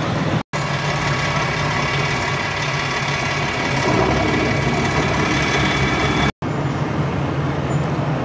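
Diesel engines of Army bridge erection boats running steadily on the water, a low drone with a higher whine on top. The sound drops out twice, briefly, where the footage is cut.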